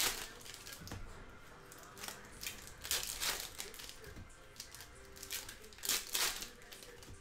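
Foil wrappers of basketball card packs crinkling and tearing, and cards being slid through by hand, in a few short bursts about three seconds apart.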